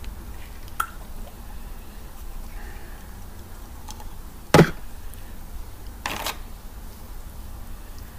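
Handling sounds from a jar of old slime: a small click about a second in, one loud sharp click about four and a half seconds in, and a short crackly rustle about six seconds in, over a low steady hum.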